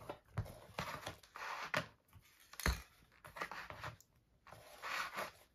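Cardboard toilet-paper-roll shapes and a cardstock cutout being slid and set down on a plastic cutting mat: scattered rustles and light taps, with one sharper tap about halfway through.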